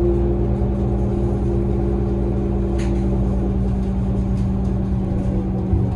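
2003 New Flyer city bus's diesel engine and drivetrain running while the bus cruises, heard from inside the passenger cabin: a steady low rumble with a constant hum. A single short rattle comes about three seconds in.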